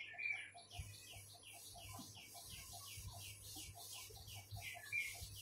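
A bird calling in the background: a faint, rapid, even series of short falling chirps, about four or five a second.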